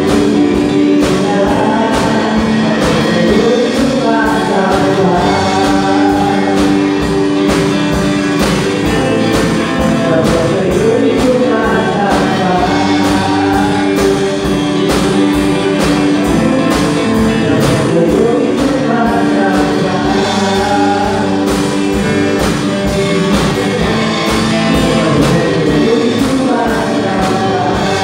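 A song played live with singing over it, a drum kit keeping a steady beat under the voices and sustained instrument notes.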